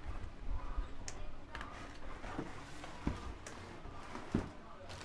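Handling noise as an RC buggy is lifted out of its cardboard box: rustling and scraping with a few light knocks.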